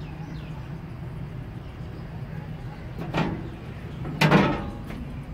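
Two loud metallic clanks about a second apart in a steam locomotive's cab, the second louder and ringing on briefly, followed by a fainter knock, over a steady low background rumble.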